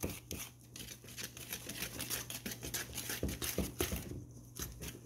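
Wire whisk beating cake batter in a bowl: quick, regular clicks and scrapes of the wires against the bowl, with a few heavier knocks partway through.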